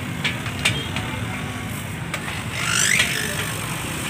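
Busy street-market background: a steady low rumble of traffic and engines with scattered clicks and clatter, and a brief rising squeal about three seconds in.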